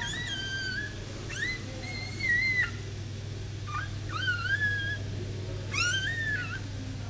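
Newborn puppies crying: a series of high-pitched squeals, each rising sharply and then held for half a second to a second, about five in all.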